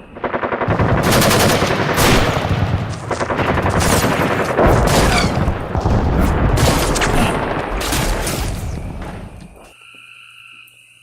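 A rapid, unbroken run of sharp bangs like machine-gun fire, lasting about nine and a half seconds and stopping abruptly near the end.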